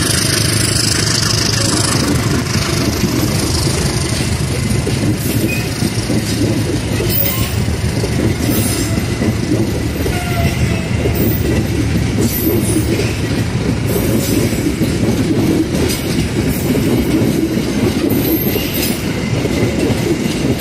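Train passing close by: a steady rumble of rolling railway cars, with wheels clacking over the rail joints.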